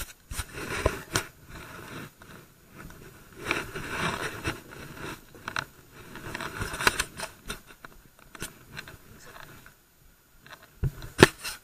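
Irregular knocks, scrapes and rustling of a body-worn camera and fishing gear being handled as someone moves about a small boat, with a sharp knock near the end.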